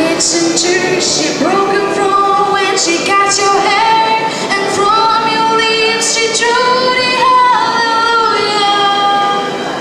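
A young girl singing solo into a microphone, with long held notes.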